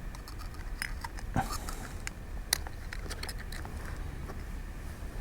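Light clicks and taps of small tools and tiny metal parts being handled inside an opened iPhone 5, with a sharper click about a second and a half in and another about two and a half seconds in, over a steady low hum.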